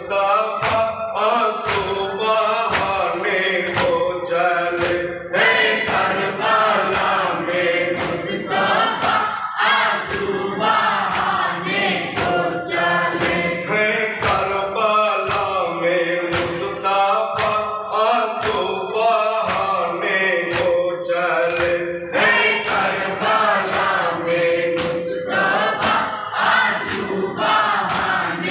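Group of men chanting a Muharram noha lament in chorus, kept in time by a steady beat of sharp hand strikes from matam, the ritual chest-beating of mourning.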